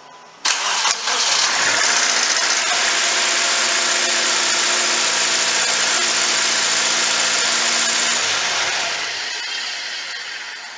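Subaru Outback engine started after a new serpentine belt and idler pulleys are fitted: a short crank about half a second in, then a steady idle. The sound dies away over the last couple of seconds.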